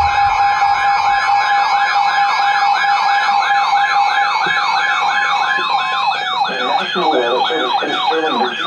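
Electronic siren yelping rapidly, about three or four sweeps a second, over a steady alert tone, sounding the start of an emergency flash flood warning. About six and a half seconds in, a second, lower-pitched yelping siren joins in.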